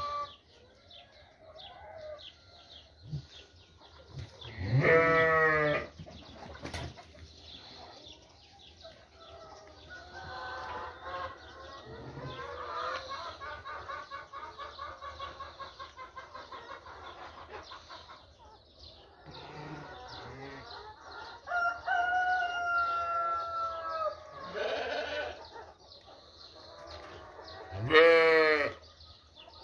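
Sheep bleating in a pen: two loud, wavering bleats, one about five seconds in and one near the end, with quieter calls between them and a rooster crowing in the background.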